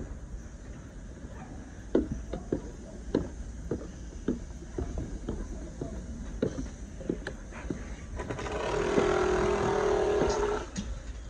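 Footsteps knocking on wooden dock decking, roughly two a second, then a louder machine drone with a steady hum that swells in about eight seconds in and cuts off near the end.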